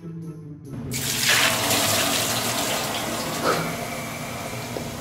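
A hissing sound effect for a puff of magic smoke bursting from a potion bowl, starting suddenly about a second in and slowly fading.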